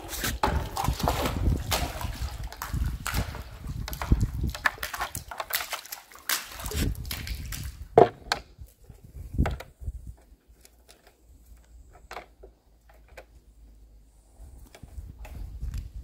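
Small plastic bucket on a rope dipped into a concrete water tank and hauled up full, water sloshing and splashing. A sharp knock about eight seconds in as it is set down on the concrete rim, then a few scattered clicks.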